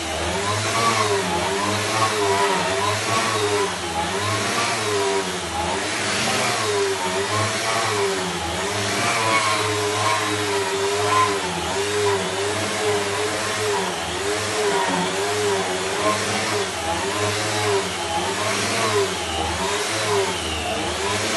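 Floor sanding machine running on old wooden floorboards. Its motor pitch wavers up and down about once a second over a steady grinding hiss.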